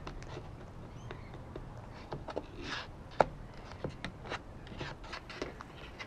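Sulphur-crested cockatoo pecking at bird seed on a wooden board and shuffling its claws on the wood, close to the microphone: irregular sharp taps and clicks, the loudest a little over three seconds in.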